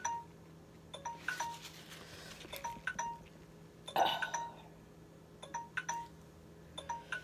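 Light, irregular clinks, each leaving a short ringing ping, scattered throughout. One short breathy sound about four seconds in.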